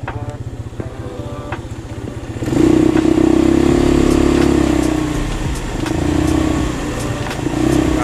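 Scooter being ridden along a paved path, a low rumble throughout. It grows markedly louder about two and a half seconds in, with a strong hum that swells and eases a few times.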